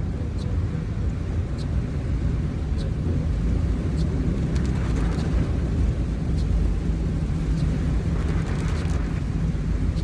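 Car cabin noise while driving in typhoon rain on flooded roads: a steady low rumble of the engine and tyres, with water rushing under the tyres in a couple of swells and faint scattered ticks.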